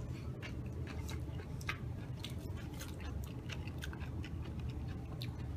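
A person chewing a bite of a nori-wrapped lamb burger: irregular small crunches and wet clicks, over a low steady hum.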